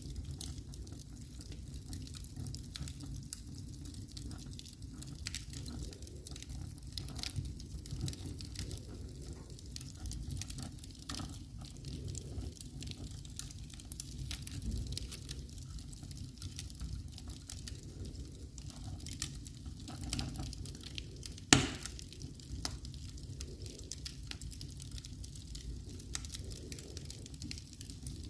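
Wood fire crackling in a fireplace, with scattered small pops and one loud pop about three-quarters of the way through.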